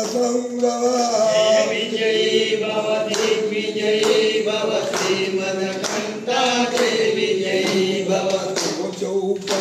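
Slow devotional chanting in a male voice, with long held notes.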